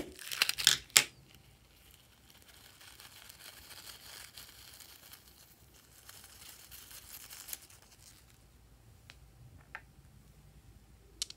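Scissors snipping into a rubber balloon, a few sharp cuts in the first second, then faint rustling as the cut balloon is squeezed and its contents shaken out. A couple of light clicks near the end.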